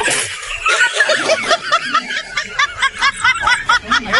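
High-pitched snickering laughter, a quick unbroken string of short giggles.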